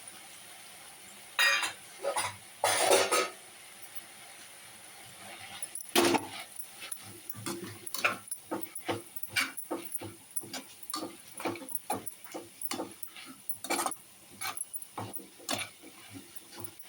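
Kitchen utensil clatter: three short loud scrapes about a second and a half in, then a long irregular run of quick clicks and knocks, like a metal spoon stirring against a pan, over a faint steady hiss.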